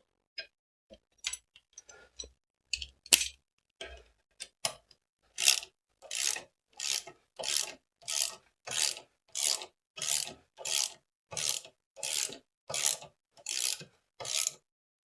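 Socket ratchet wrench being worked back and forth on a motorcycle engine mount bolt, a rasping ratchet click on each return stroke, about three strokes every two seconds from about five seconds in. Before that come scattered clinks of tools being handled.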